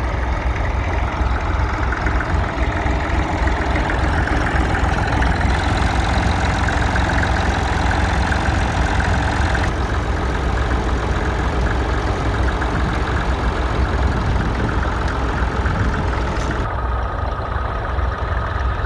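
Massey Ferguson 35 tractor engine running steadily, with a strong low-pitched rumble. The tone shifts abruptly a few times.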